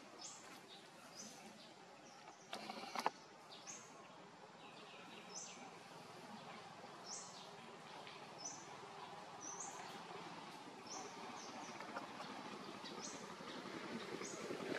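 Small birds chirping: short, high chirps repeat every second or so over faint background noise. A brief rustling clatter comes about two and a half seconds in, and a low rumble builds near the end.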